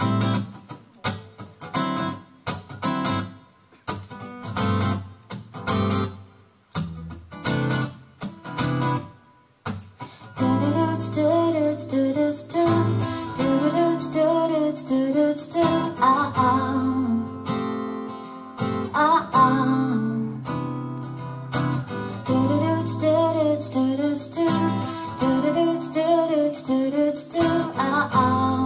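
Acoustic guitar playing a song's intro. For about the first ten seconds it strums separate chords with short pauses between them, then it settles into continuous playing with a melody line moving over the chords.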